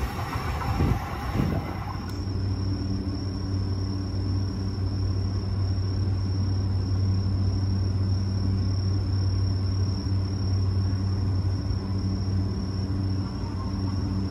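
A stationary JR E235-1000 series electric train gives a steady low hum with a faint high whine from its onboard equipment. The first two seconds are the running noise of another train moving through the station, which cuts off abruptly.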